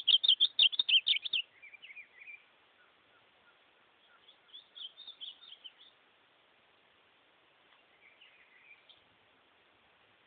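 Ultramarine grosbeak (azulão) singing: a loud, rapid phrase of about a dozen whistled notes at the start, then fainter, shorter phrases three more times.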